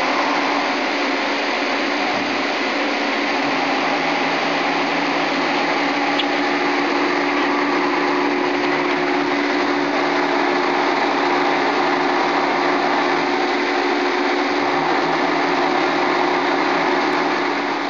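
Hurco BMC20 CNC vertical machining center's spindle running at speed: a steady, super quiet hum with a few low, even tones and a hiss over it.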